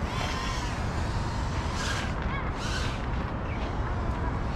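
Small FPV cinewhoop drone (GEPRC Cinelog 35) whining in flight, its motor pitch rising and falling with throttle, with short louder surges about two seconds in and again half a second later, over a steady low rumble.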